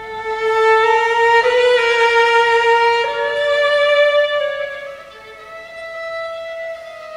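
Two violins playing a slow duet of long held notes, swelling louder about half a second in and softening after the middle.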